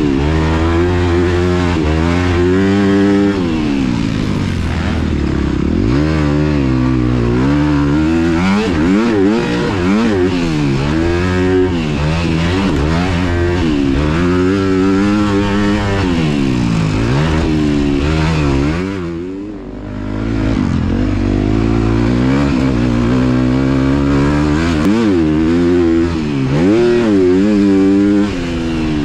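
2023 Honda CRF250R's single-cylinder four-stroke engine revving up and down over and over, rising and falling in pitch every second or two as it is ridden hard. About two-thirds of the way in it drops briefly off the throttle, then picks up again.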